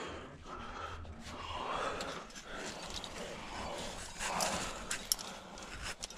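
A rock climber breathing hard with effort in a chimney, in heavy breaths a second or two apart, close to the microphone. A few sharp clicks come near the end.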